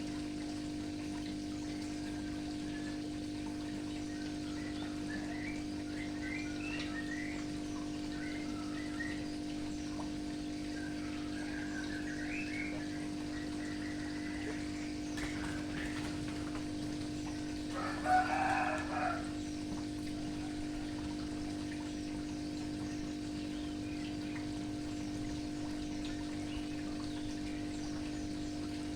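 Birds chirping lightly, and a chicken calling once loudly, about a second long, around two-thirds of the way in, over a steady low hum.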